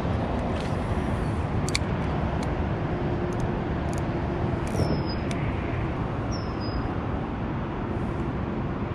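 Steady highway traffic noise, a constant rumble and hiss of passing vehicles. Twice in the middle, a short high falling whistle sounds over it.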